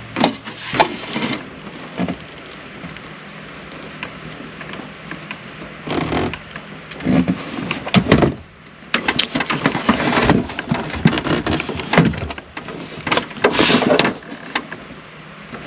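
Hands working plastic dashboard parts and clips: irregular bursts of clicking, snapping and rattling with a few sharp knocks.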